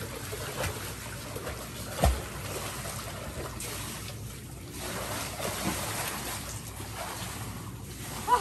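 Swimming-pool water splashing and sloshing around a swimmer, with one dull thump about two seconds in.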